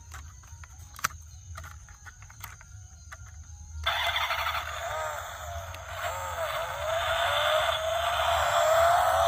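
Faint scattered clicks and taps. About four seconds in, a loud warbling tone cuts in over a hiss, bending up and down and then rising slowly in pitch.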